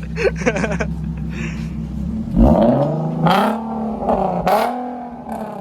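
Infiniti Q50 engine running through test pipes in place of its catalytic converters: idling steadily, then revved up about two seconds in, with two sharp blips about a second apart before it drops back.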